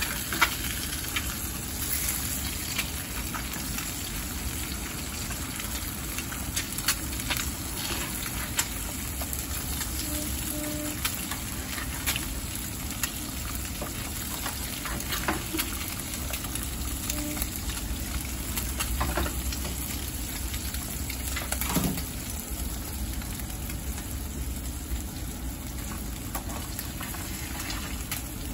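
Eggs frying in hot oil in a nonstick pan, sizzling steadily, with scattered clicks and scrapes of a spatula against the pan as the eggs are lifted.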